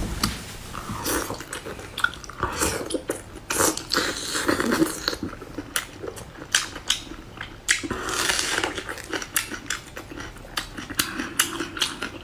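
A person eating, heard up close: biting into and chewing soft, saucy food, with frequent sharp wet mouth clicks and smacks.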